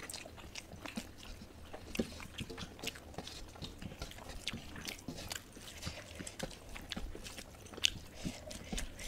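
People chewing and biting food close to the microphone: a steady run of small, irregular mouth clicks.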